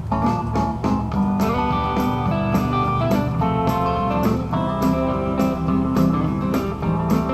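Instrumental break of a country-rock song: guitar-led band playing with a steady beat of about two drum hits a second.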